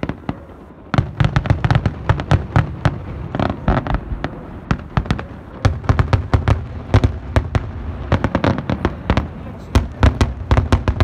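Aerial fireworks display: a single bang, then from about a second in a dense, continuous barrage of shell bursts and crackling reports, several sharp bangs a second.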